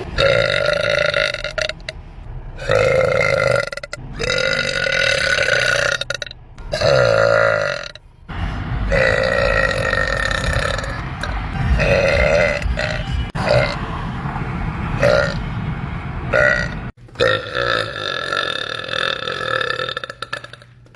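A woman burping loudly again and again: a run of long, drawn-out belches of a second or two each, with short breaks between them and some cut off abruptly.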